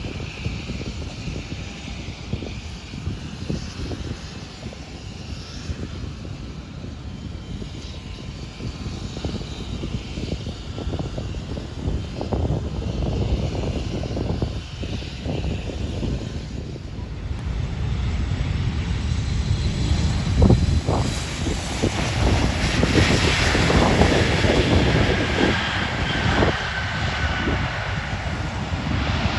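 Fixed-wing aircraft engine noise, growing louder and brighter through the second half as the plane passes, with a thin whine falling slightly in pitch near the end. Wind buffets the microphone throughout.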